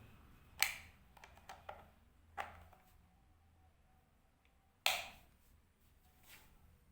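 A few separate sharp clicks and knocks of handling, the loudest about five seconds in, over faint room tone, as a repaired LED TV is being readied to switch on.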